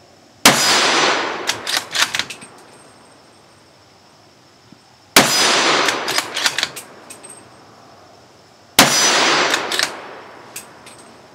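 Three unsuppressed shots from a Ruger American Ranch bolt-action rifle in 300 AAC Blackout firing supersonic ammunition, about half a second, five seconds and nine seconds in, each ringing out briefly. Each shot is followed by a few metallic clicks and clacks as the bolt is worked.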